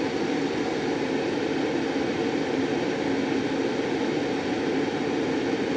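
Car's air conditioning blowing steadily, an even rushing noise with no change.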